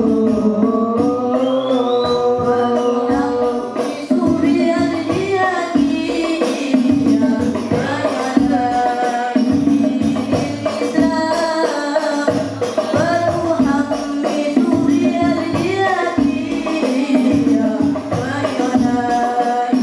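A young male voice singing sholawat into a microphone, backed by an al-Banjari ensemble of hand-struck frame drums (rebana) playing a steady, dense rhythm. The opening bars are mostly long held vocal notes; the drums come in fully about four seconds in.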